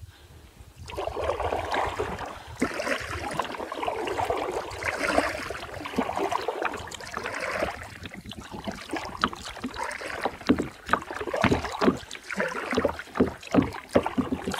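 Double-bladed kayak paddle stroking through the water, the blades swishing in on alternate sides with water splashing and dripping off them. The strokes come in repeated surges, with many small splashes and drips in the second half.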